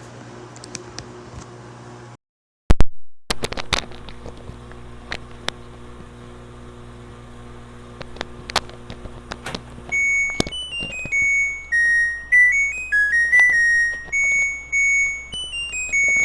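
Washing machine's electronic end-of-cycle melody: a tune of clear single beeping notes that starts about ten seconds in. Before it comes a steady low hum with scattered clicks and one very loud sharp click about three seconds in.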